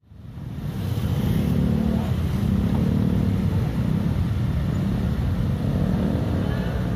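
Heavy motorcycle and scooter traffic running in a slow queue, a continuous mass of small engines with a few cars among them. The drone fades in over the first second and then holds steady.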